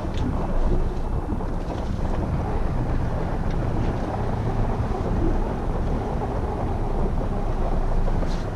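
Steady wind buffeting the microphone, a low, even rumble. There are a few faint ticks near the start and again near the end.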